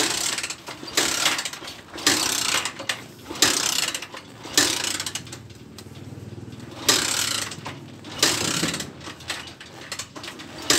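Honda TMX motorcycle kickstarter kicked about seven times, each stroke a short mechanical ratcheting crank of the single-cylinder engine, which turns over but does not start.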